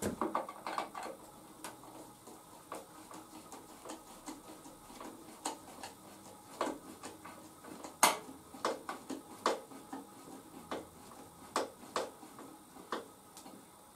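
Irregular light clicks and taps of small parts and tools being handled during moped cable work, with a sharper knock about eight seconds in.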